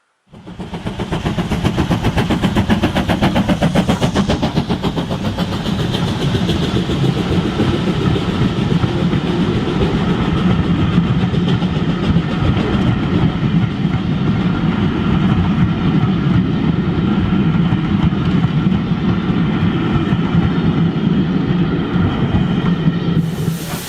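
OO gauge model train running along the track: a steady, loud clatter of wheels and motor with fast fine ticking. It starts suddenly just after the beginning.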